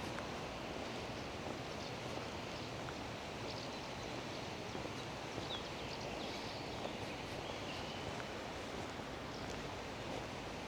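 Steady outdoor ambient noise by a lakeside, with a few faint high bird chirps in the middle.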